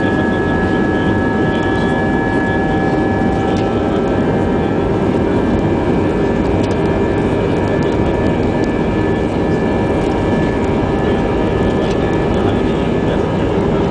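Airbus A320's jet engines running steadily, heard from inside the passenger cabin: a loud, even rush with several steady high tones, as the airliner moves along the ground.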